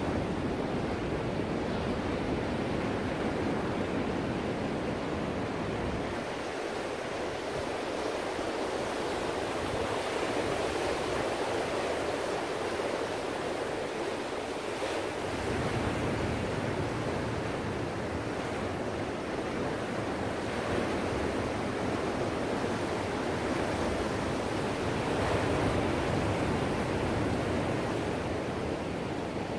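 Ocean surf: waves breaking and washing up a beach in a continuous rushing wash that swells and eases gently.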